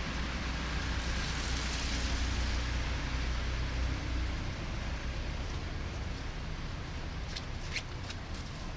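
City street traffic on a snowy street: a vehicle passes with a low rumble and a swell of tyre hiss over the first few seconds, over a steady wash of traffic noise, with a few sharp clicks near the end.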